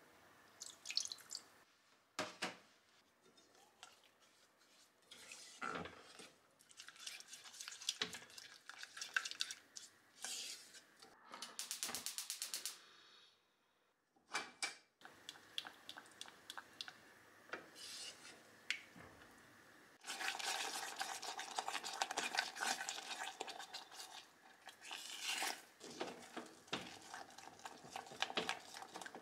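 Kitchen work sounds: sugar, yuzu juice and mirin tipped from small glass bowls into a stainless steel pot of white miso, with light clinks of glass against the pot, then a spatula stirring and scraping the mixture steadily as it heats and thickens into yuzu miso. A second of rapid, even clicking comes about twelve seconds in.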